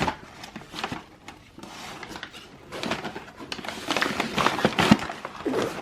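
Rustling and handling noise with scattered clicks and light knocks, busier and louder in the second half, with one sharp knock near the end.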